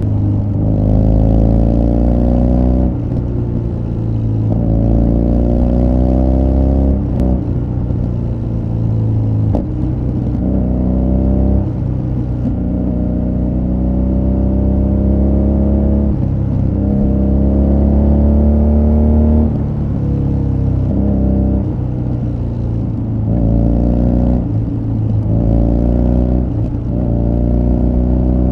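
A BMW R nineT Scrambler's air/oil-cooled boxer twin running through an Akrapovic exhaust, heard from the saddle on the move. Its note climbs in pitch under throttle and drops back sharply at each gear change, many times over, with shorter, quicker pulls near the end.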